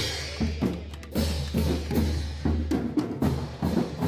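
Marching drumline playing: snare drums, multi-tenor drums and bass drums beating a steady, rapid rhythm of sharp strikes with a deep bass underneath.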